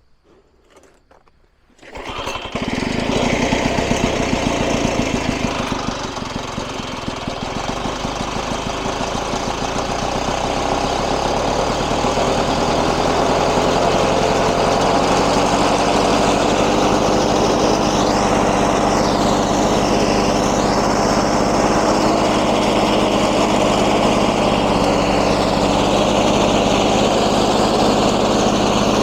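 Lawn-Boy 10650 mower's 6.5 hp two-stroke engine starting about two seconds in, then running. Its speed sags a few seconds after it catches, comes back up and settles into a steady run.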